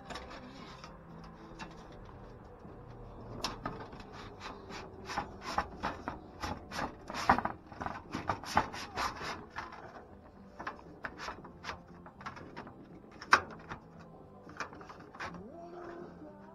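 White aluminum vented soffit panel being worked into place by hand: light metal scraping with a run of sharp clicks and knocks, densest in the middle, and one louder knock later on.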